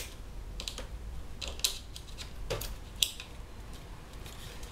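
Hands pressing parts into a 3D-printed plastic laptop case, making a handful of sharp, irregular plastic clicks and taps. The loudest click comes about three seconds in.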